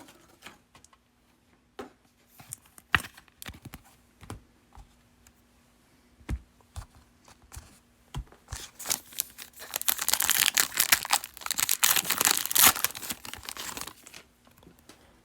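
Trading card pack wrapper torn open and crinkled: a few light clicks of handling at first, then a dense stretch of tearing and crinkling in the second half.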